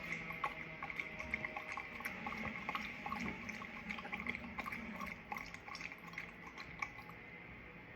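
Shiba Inu lapping water from a bowl: a quick run of small wet splashes and clicks from the tongue, growing quieter near the end.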